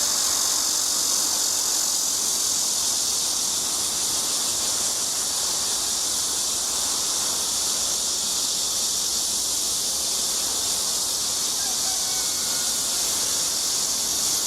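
A steady, high-pitched insect chorus, with a few faint short bird chirps.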